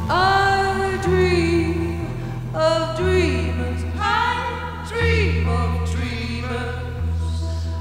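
A woman singing long, sliding phrases into a microphone over band music, with low sustained bass notes that change about once a second.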